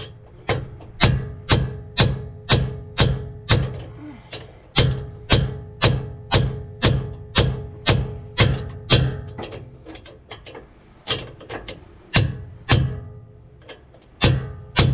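Hammer blows driving a bearing race into a differential housing, about two strikes a second, with the metal ringing after each hit. The strikes pause briefly about four seconds in and turn sparser and lighter in the last few seconds as the race seats.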